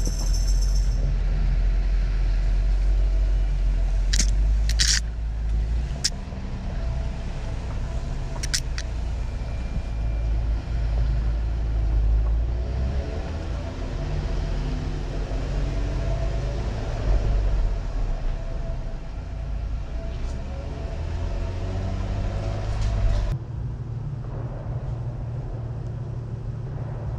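2020 Jeep Gladiator Rubicon's 3.6-litre V6 running at low speed as the truck crawls along a dirt trail, with a steady low rumble. A few sharp clicks come between about four and nine seconds in, and the sound changes abruptly to a thinner, steadier rumble near the end.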